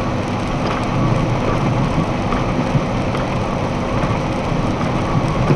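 Steady cab noise of a box truck cruising at highway speed, about 68 mph: engine drone mixed with tyre and road noise, heard from inside the cab.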